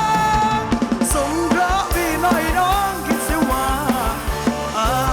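Live band playing an upbeat Thai ramwong song: a steady drum beat under a wavering lead melody, with no words sung.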